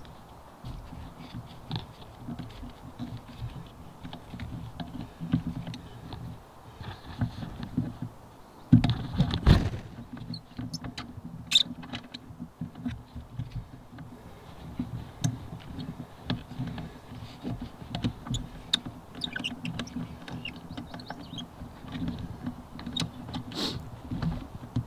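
Mountain bike rolling over a rough gravel trail: tyres crunching with constant clicks and rattles from the bike, and a heavy jolt about nine seconds in.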